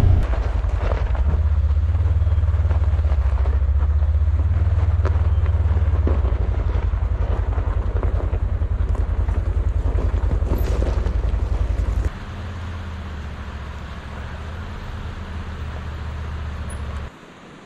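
Low, steady vehicle engine rumble with some wind noise. It drops to a quieter rumble about twelve seconds in and cuts off just before the end.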